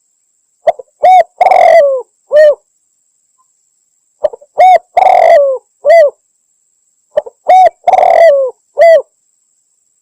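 Spotted dove (tekukur) cooing, played as a hunting lure call sold as a female calling to males: three identical phrases, each a few short coos around one long, rough coo that falls at its end, repeating about every three and a half seconds.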